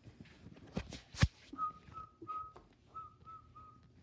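A person whistling a string of short notes at a nearly steady pitch, after a sharp knock about a second in.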